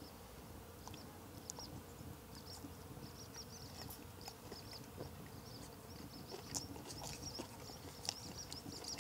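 Faint, quick high chirps repeating many times over a quiet outdoor background, from small wild animals, with a few soft clicks.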